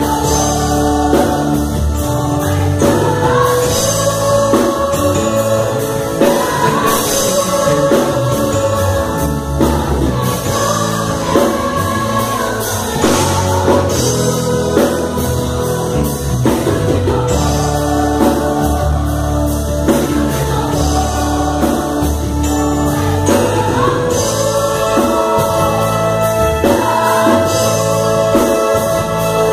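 Gospel choir singing with a live band: electric bass, drum kit and keyboard, with long held sung notes over a steady beat.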